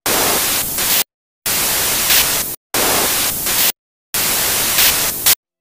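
TV static sound effect: loud white-noise hiss in four bursts of about a second each, each cut off suddenly by a short silence.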